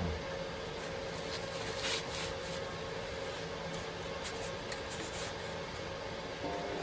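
Work gloves rustling and rubbing as they are pulled on, and gloved hands handling the bench grinder, with a few faint small clicks. Just before the end a motor sound begins to rise as the Parkside bench grinder starts up.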